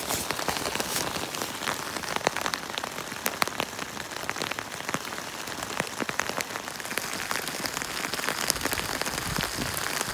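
Steady rain from a rainstorm pattering on a tent's fabric, with many sharp single drop hits standing out irregularly.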